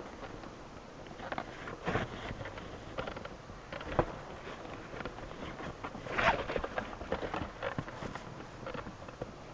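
Irregular small clicks and knocks of small parts being handled, with a louder brief clatter about six seconds in.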